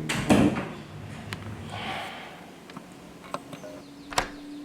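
A short, loud rough noise right at the start, then a few sharp clicks and knocks, like things being handled or a door or drawer moving.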